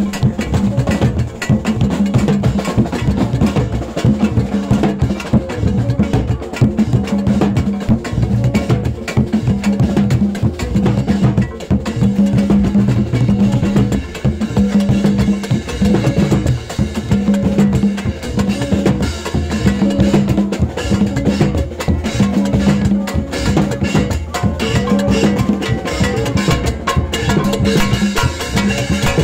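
Haitian rara band music: hand drums beaten with bare hands and a metal plate struck with a wooden stick in a busy, steady rhythm. Over them a low note sounds in short repeated blasts about once a second.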